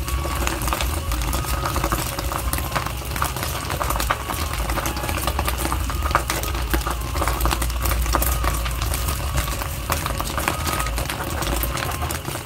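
Steady low rumble of a lit gas burner under a wok, with scattered crackles and clicks over it.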